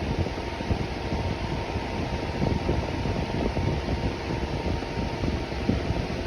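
Electric fan running steadily, a constant whoosh of moving air with a low rumble and a faint hum.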